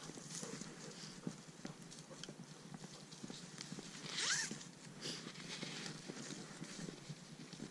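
Footsteps crunching over dry twigs and forest litter, with a louder swish and short squeak of the nylon tracking leash running through gloved hands about four seconds in.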